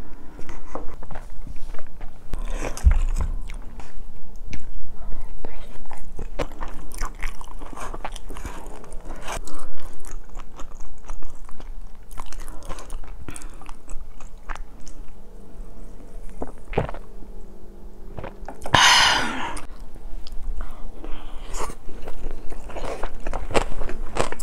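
Close-miked eating: chewing and biting on spicy fried noodles and cheese rice, with many small clicks of chopsticks and a spoon against a stone pot. About 19 seconds in, a louder rushing noise lasts about a second, and near the end the spoon scrapes rice from the bottom of the stone pot.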